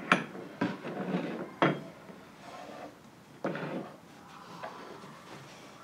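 Porcelain cups and saucers clinking and knocking as they are set down on a wooden table: a few sharp separate clinks, spaced a second or more apart.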